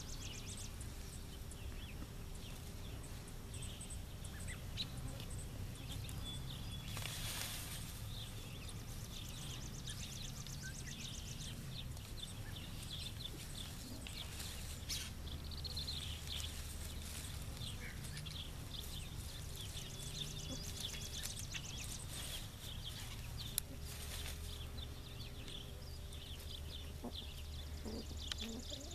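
Outdoor ambience: small birds chirping on and off, with a high, fast trill in stretches, over a low steady rumble. Now and then comes a brief rustle of leaves as the Buff Orpington hens jump and peck at the raspberry canes.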